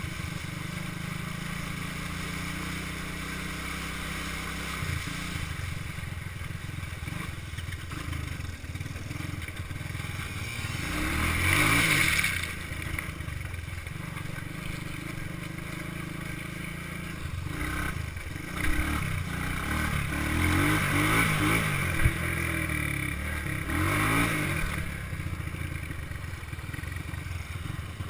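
Honda ATC 200S three-wheeler's single-cylinder four-stroke engine running while being ridden, heard from the handlebars. It revs up hard about a third of the way in, then rises and falls through several throttle blips over the second half.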